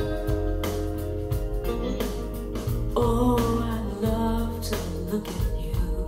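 A song with drums and bass played back through Canton GLE 436 bookshelf speakers, recorded in the room.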